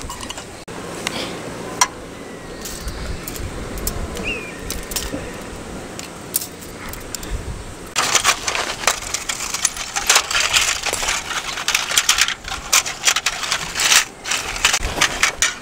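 Thin metal panels of a small folding wood stove clinking and clattering as it is taken apart and folded flat. The clinking is dense and irregular from about halfway in. Before that there are only a few light handling clicks.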